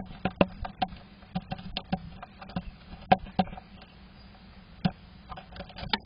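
A great tit moving about inside a wooden nest box: irregular sharp taps and scratches of its claws and bill on the wood, the loudest a little after three seconds in.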